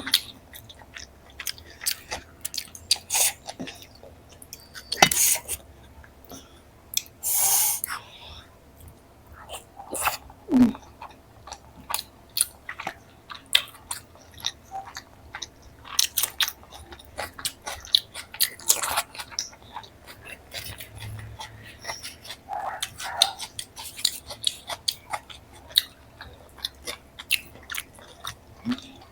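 Close-miked eating sounds: chewing and biting of paneer curry with roti and flaky lachha paratha, many irregular wet mouth clicks and smacks with a few louder crisp bites.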